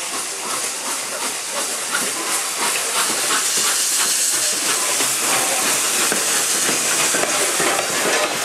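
Norfolk & Western 611, a J-class 4-8-4 steam locomotive, coming past with a loud, steady hiss of steam that swells over the first couple of seconds and then holds.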